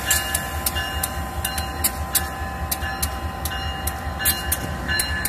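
A pair of GE AC44i diesel-electric locomotives rolls slowly past at close range while shunting, with a steady low engine rumble and a steady whine. Over it come frequent irregular sharp clicks and short squeaks from the wheels on the rails.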